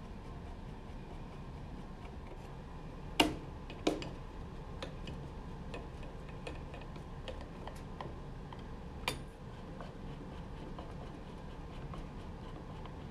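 A hand screwdriver driving the main board's mounting screws into a metal chassis. The bit turning in the screw heads makes many small ticks. Two sharper metallic clicks come about three and four seconds in, and a lighter one about nine seconds in.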